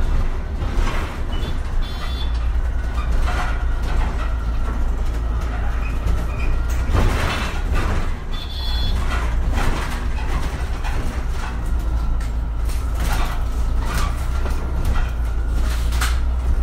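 MAN Lion's City Hybrid city bus running, heard from beside its front door: a steady low rumble with a faint whine that drifts slightly in pitch, and frequent rattles and knocks. Two short high-pitched tones sound about two and nine seconds in.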